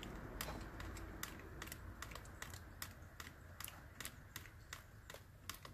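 Faint, irregular small clicks and taps, several a second, as a multimeter probe and its leads are worked against a car battery's terminal.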